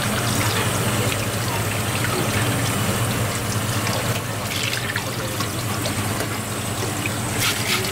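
Kitchen tap running steadily onto a fish being rinsed by hand in a stainless sink, the water splashing over the fish and cutting board. A low steady hum sits underneath, with a few light clicks of handling about four seconds in and near the end.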